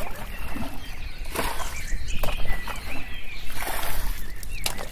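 Water splashing and sloshing in a shallow muddy ditch, in several separate bursts.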